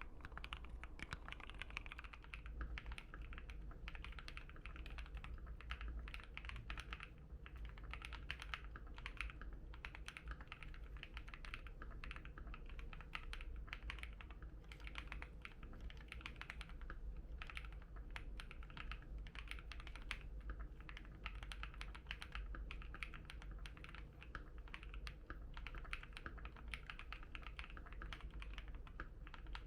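Steady, continuous typing on a Keychron Q1 mechanical keyboard with an FR4 plate, keystrokes clacking densely without pause. The first few seconds are Gateron Phantom Brown tactile switches; the rest are KTT Strawberry linear switches.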